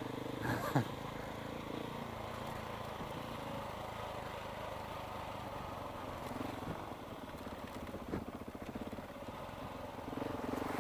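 Single-cylinder engine of a KTM 690 motorcycle running steadily off-road, its firing pulses even, with one short knock about eight seconds in.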